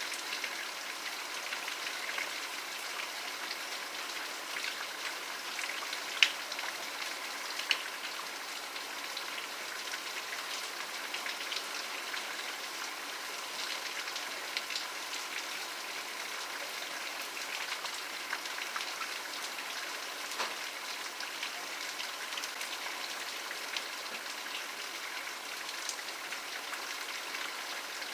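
Steady rain falling, an even hiss full of small drop ticks, with two sharper, louder drop hits about six and eight seconds in.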